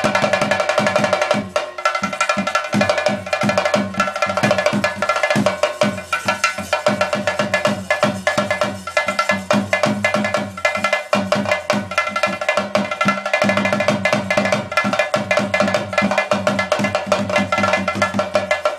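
Fast, continuous ceremonial drumming on cylindrical drums, dense rapid strokes with no break, with a steady ringing tone held above it.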